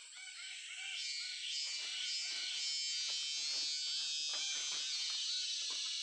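Tropical bamboo-forest wildlife chorus: a dense, high, ringing insect chorus swells up about a second in, over short repeated chirping calls lower down.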